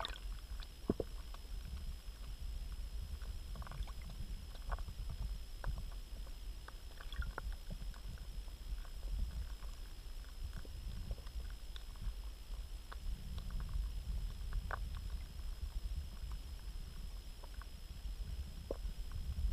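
Muffled underwater pond sound heard through a GoPro's waterproof housing: a steady low rumble of moving water with scattered small clicks and pops.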